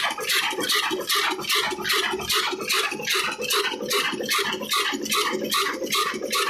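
22 HP old 'black' single-cylinder diesel engine running steadily, with a regular metallic clatter of about four to five knocks a second over a low hum.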